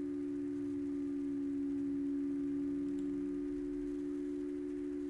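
A steady, unchanging hum of two pure tones close together in pitch.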